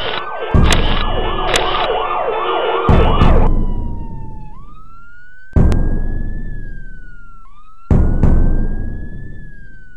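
Soundtrack music that stops about three and a half seconds in, leaving a siren wailing slowly up and down in pitch. A heavy low hit lands about every two and a half seconds and dies away, four in all.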